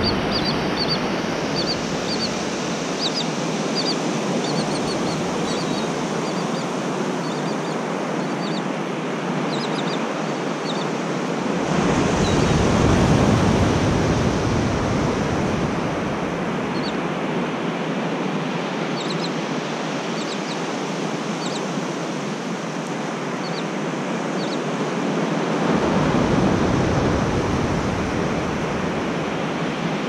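Ocean surf washing up a sandy beach, a steady rush that swells twice with deeper wash as waves run in, about twelve seconds in and again near the end. Short high bird chirps come and go over it.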